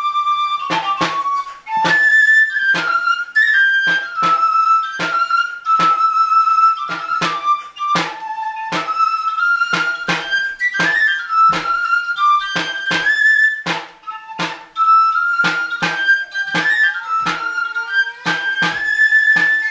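Basque dance tune played on a high flute over a steady drumbeat, with sharp drum strikes about two to three a second under the melody.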